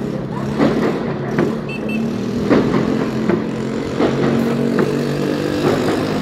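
Fireworks going off: a run of irregular bangs, about one every half second to a second, over a steady low droning hum.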